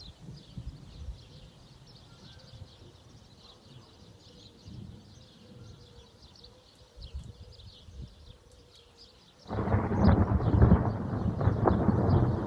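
Thunder: after faint low rumbling, a loud clap breaks in suddenly about three-quarters of the way through and keeps rumbling. Birds twitter high and continuously throughout.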